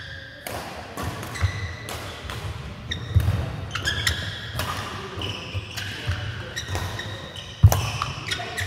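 An indoor racket-sport doubles rally: shoes squeaking on a sports-hall floor, footsteps thudding and sharp hits ringing in a large hall. The loudest hits come about three seconds in and near the end.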